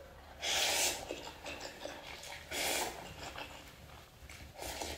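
A person slurping spicy instant cup noodles off chopsticks: three short, loud slurps about two seconds apart.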